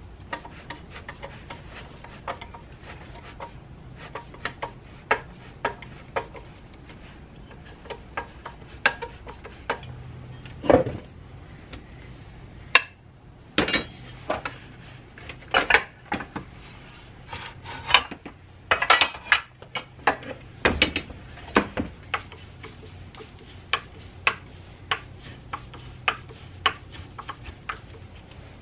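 Hand tools and small metal parts clinking and knocking on a workbench, one sharp click about every second at first, then a denser run of louder knocks through the middle, over a steady low hum.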